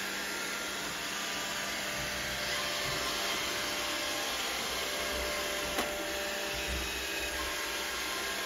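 Robot vacuum running with a steady whirring hiss, with one brief click a little before six seconds.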